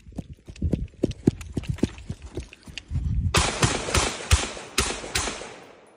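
Quick running footsteps thud on grass and dirt. About three seconds in, an M14 semi-automatic rifle in .308 fires about five shots in quick succession, roughly two a second.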